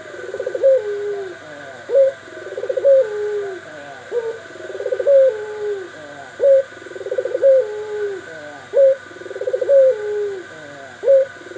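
Several doves cooing over one another in short repeated phrases, about one a second. Each phrase is a rolling coo that rises and then falls.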